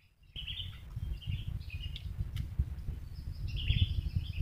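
Wild birds chirping in short clusters of high notes over a low, irregular rumbling noise. The sound cuts in abruptly after a brief moment of silence at the start.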